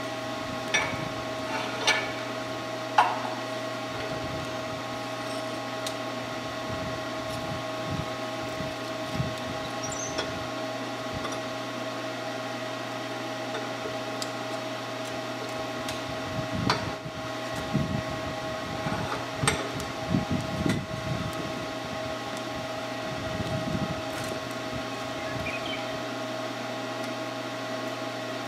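Small Forney Easy Weld 110 stick welder humming steadily with its fan running, with occasional sharp clicks and a run of low knocks from metal being handled about halfway through.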